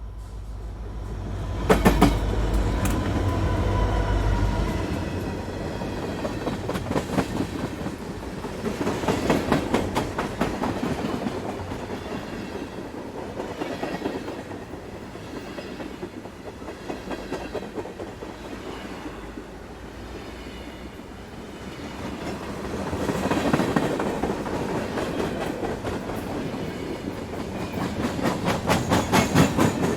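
Train's metal wheels clattering over the rail joints in a rhythmic clickety-clack, groups of sharp clicks over a steady rumble that swells louder several times. A deep low rumble sits under the first few seconds.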